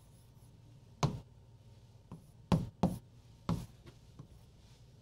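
Stylus tapping against a glass touchscreen whiteboard during writing: four sharp taps, two of them close together near the middle, with a few fainter ticks in between.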